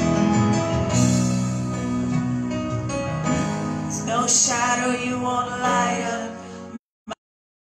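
Live worship band playing, with singers over keyboard and cajon. Near the end the sound cuts out abruptly to silence.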